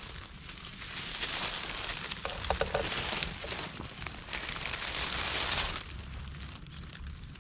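Dry fallen leaves rustling and crackling as a cat shifts and settles in them. The rustling swells and fades a couple of times and dies down near the end.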